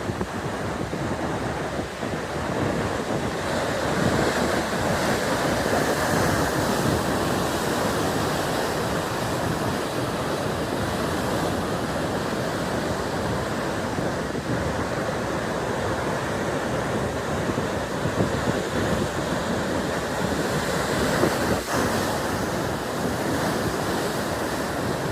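Heavy ocean surf breaking and washing in a continuous rush, with wind buffeting the microphone. The surf swells louder a few seconds in.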